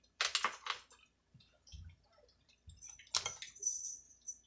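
Close-miked eating sounds: wet chewing and mouth clicks coming in short, irregular bursts.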